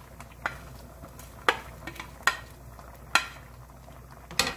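Wooden spoon knocking against a ceramic plate and the pot as sliced onion, green onion and chilies are scraped into boiling soup: about five sharp knocks, roughly a second apart, over the soup's steady bubbling.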